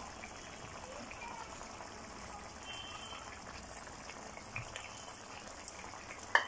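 Curry simmering in a kadhai, a faint steady bubbling hiss, with one sharp knock near the end.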